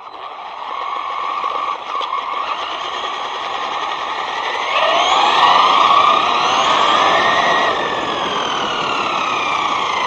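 Brushless electric motor and drivetrain of a ZD Racing Pirates 2 RC truck whining under throttle, over a steady rushing hiss, as heard from an onboard camera. The whine climbs in pitch and gets louder around halfway, then several whines fall away in pitch toward the end as it slows and speeds up again.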